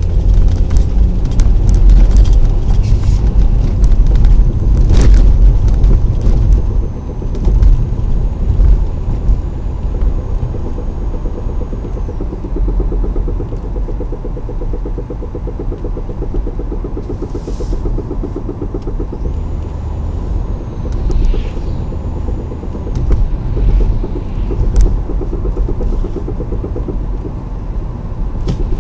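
Car driving, with road and tyre rumble and a fast, even knocking from the running gear that becomes clear in the second half. The knock is the kind that vanishes instantly when the brakes are applied and is hard to hear under throttle.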